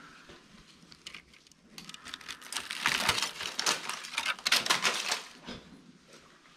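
Rapid, dense crackling and crunching that starts about two seconds in and stops about three seconds later, with a few scattered clicks before it.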